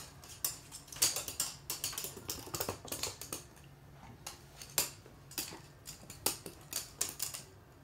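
Toy poodle's claws clicking and skittering on a hard wood-look floor as it bounds and pounces in play. The clicks are quick and uneven, thickest in the first few seconds and coming in scattered ones and twos later.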